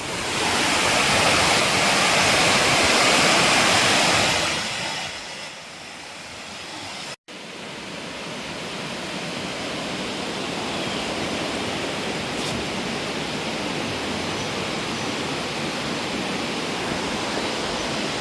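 Waterfall rushing, a dense steady roar of falling water. It is loudest for the first four seconds, eases off, cuts out for an instant about seven seconds in, then carries on as a steady rush.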